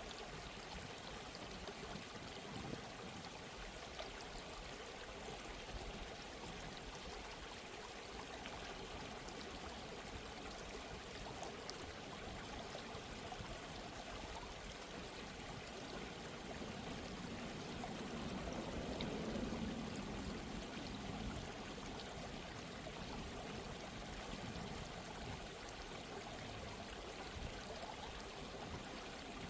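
Steady running water, like a flowing stream, with a continuous rushing-and-trickling sound that swells slightly a little past the middle.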